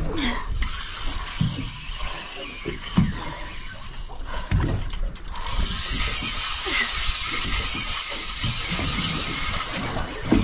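Fishing reel ratcheting and clicking as a hooked fish is fought and tired out.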